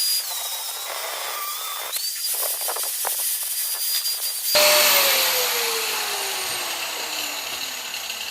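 Angle grinder with a cutting disc cutting through metal, its high whine dipping under load. About halfway through it is released and winds down with a falling whine.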